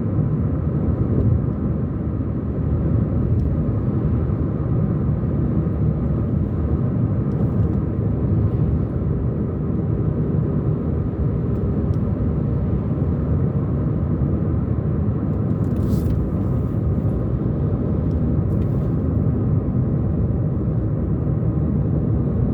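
Car driving along at a steady pace: constant road and engine noise, low and even throughout, with a few faint ticks.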